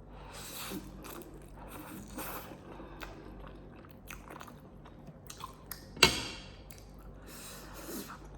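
Close-miked chewing and mouth sounds of a person eating, with soft scattered bites and one sharper, louder click about six seconds in.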